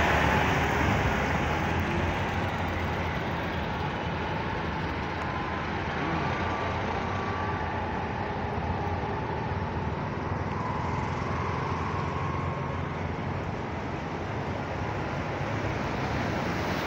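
Steady traffic noise of vehicles driving through floodwater on a road: engines and the continuous wash of water under the wheels.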